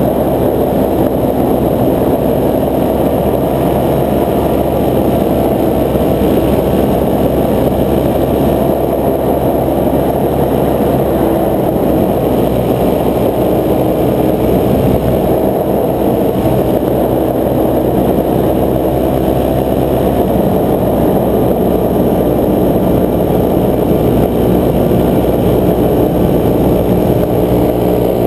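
Paramotor engine and propeller running steadily in flight, heard from the pilot's harness.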